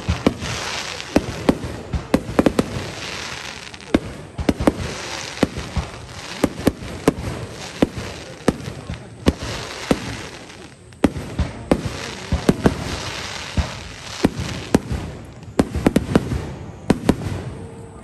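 Aerial firework shells bursting in a rapid, irregular string of sharp bangs, with stretches of crackling hiss from the glittering stars between them; the barrage thins out near the end.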